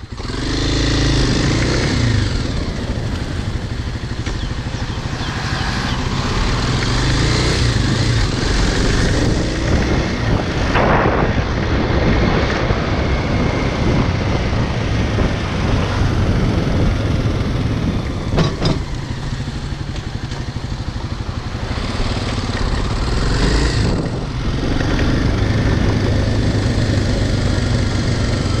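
Kawasaki dirt bike engine running under way, its note rising and falling with the throttle. It swells sharply just at the start and eases briefly near the end.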